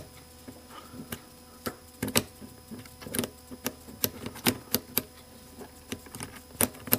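Irregular sharp clicks and taps of small metal parts as the sleeve of a DeWalt impact driver's quick-change bit holder is fitted and worked over its retaining ball and spring.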